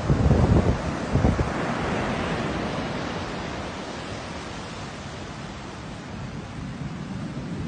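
Sea surf breaking and washing up a beach: a broad hiss that swells about two seconds in, then slowly fades as the water runs out. Wind buffets the microphone in loud low gusts during the first second or so.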